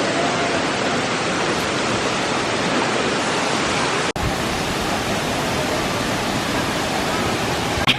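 Large waterfall's water rushing in a steady, even noise, with a momentary dropout about four seconds in before it resumes. The waterfall is Tinuy-an Falls.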